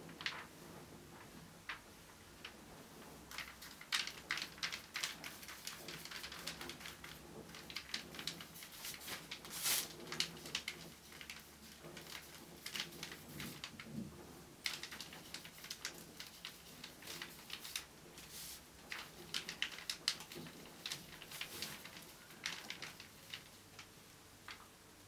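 Irregular soft clicks, taps and scratchy strokes from a paintbrush working acrylic paint on canvas, with the small knocks of handling brush and paint pot.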